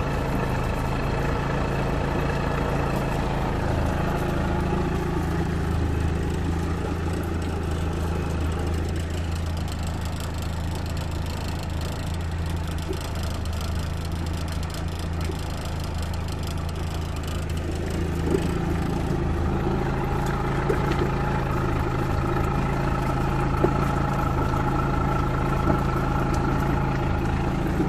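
Evinrude E-TEC 50 hp two-stroke outboard idling steadily with its lower unit in a tub of water, which it churns; it is extremely quiet for a two-stroke. This is a tub test, and the water pump is working.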